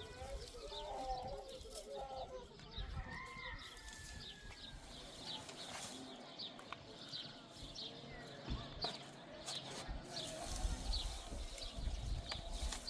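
Small birds chirping: many short, high chirps repeating throughout, with a few wavering lower calls in the first few seconds, over a low outdoor rumble.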